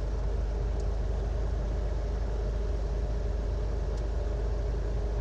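The bulldozer's engine running steadily at an even speed, a low steady drone, heard from inside the cab.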